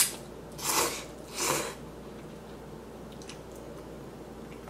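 Someone slurping instant ramen noodles from a bowl: two or three short hissing slurps in the first two seconds, then faint chewing.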